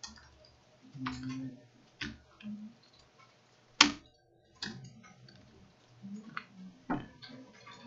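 Computer keyboard keystrokes: a handful of separate clicks at an uneven pace. The loudest keystroke comes about four seconds in.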